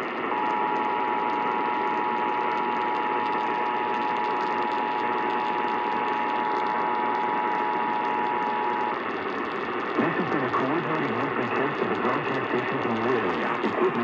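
Emergency Alert System attention signal, the steady two-tone alarm of 853 and 960 Hz sounding together, received over a radio with static and held for about eight and a half seconds. It stops, and about a second later an announcer's voice comes through the static.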